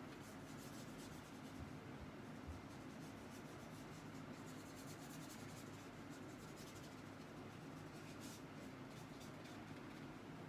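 Faint, scratchy swishes of a wide flat watercolour brush stroked over paper, many quick strokes in a row.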